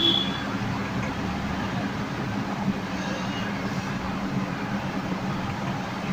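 Steady low background hum under an even hiss, with no distinct event.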